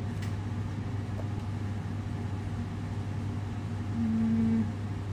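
A steady low hum, like a fan or appliance running, with a brief hummed note about four seconds in.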